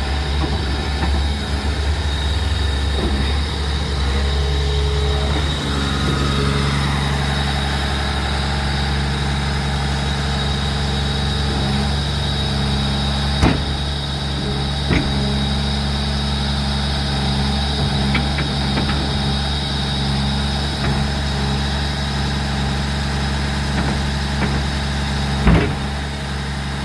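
Caterpillar crawler dozer's diesel engine idling steadily, its note shifting slightly about six seconds in. A few short sharp knocks stand out, the loudest near the end.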